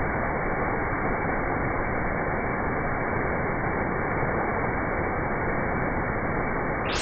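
Steady rushing noise of a waterfall, dull and muffled at first. Just before the end it suddenly opens up into a full, bright hiss.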